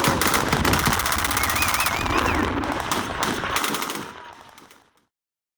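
Machine guns firing long rapid bursts, overlapping into a continuous rattle that fades out about four seconds in.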